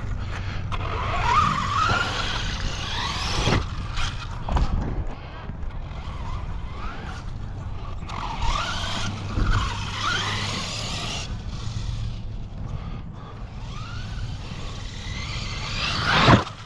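Arrma Kraton 6S EXB RC truck being driven hard: its brushless motor whines up and down in pitch with each burst of throttle, over tyre and ground noise. There is a sharp knock about three and a half seconds in and a louder hit near the end.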